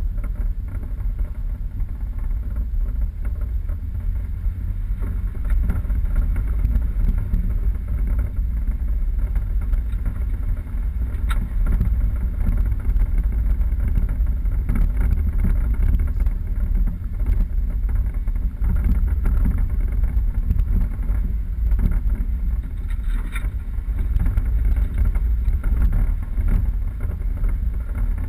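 Four-wheel-drive vehicle driving off road: a steady low rumble of engine and tyres, with a few faint knocks.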